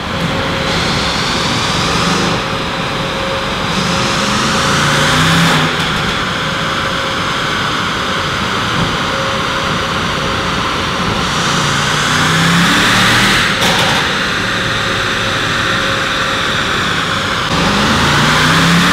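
Mercedes-AMG S63's twin-turbo V8 running under load on a chassis dynamometer. Its pitch climbs in long rising sweeps, with brief breaks about a third and two-thirds of the way through, like gear changes during a power run.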